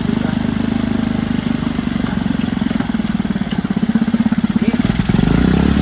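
Rusi 125 single-cylinder four-stroke motorcycle engine, fitted in a small jet boat, running steadily with a fast even beat. Near the end its beat shifts and it grows louder.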